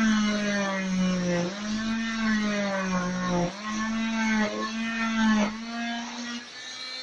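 Oscillating cast saw running with a high motor whine, its pitch sagging and recovering several times as the blade is pressed into the cast and lifted off again.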